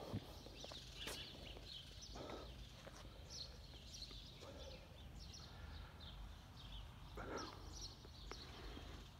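Faint outdoor ambience of small birds chirping in quick, scattered calls, with a few soft footsteps on paving and a steady low hum underneath.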